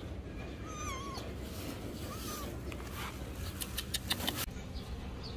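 A kitten meows twice: a wavering call about a second in, then a shorter one a second later. A few sharp clicks follow past the middle.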